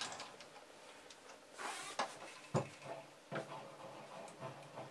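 A few light metal clicks and knocks as the parts on a mini lathe's carriage and tool post are handled, with a short scrape-like hiss just before the first sharp click, over a faint low hum.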